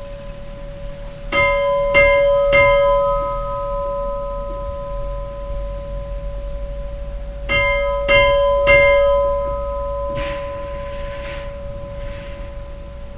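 A church bell struck three times in quick succession, then three more times about six seconds later. Every strike has the same pitch and rings on long after it, and a brief soft hiss follows near the end.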